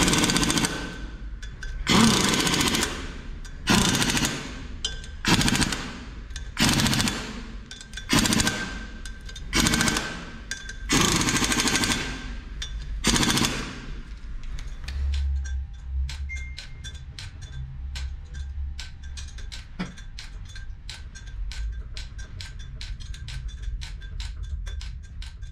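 Pneumatic impact wrench running the ARP bolts of a clutch pressure-plate cover down onto the flywheel in about nine short hammering bursts, each under a second, roughly every second and a half. The bursts stop about halfway through, leaving only faint rapid ticking.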